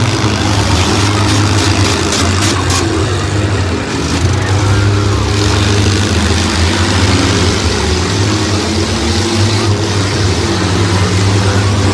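Several demolition derby cars' engines running and revving unevenly as they manoeuvre and ram one another, with a few short sharp knocks about one to three seconds in.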